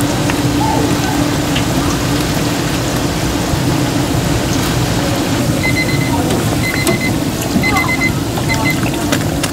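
Churro deep-frying in a basket of hot oil, with a steady bubbling sizzle. In the second half a high electronic beep sounds four times, about a second apart.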